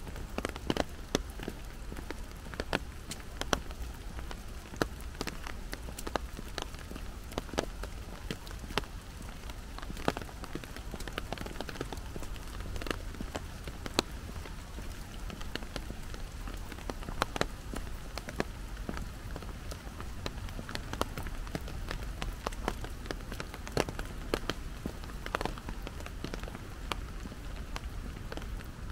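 Steady rain falling, with large drops tapping irregularly and sharply on nearby surfaces over a constant hiss and a low rumble underneath.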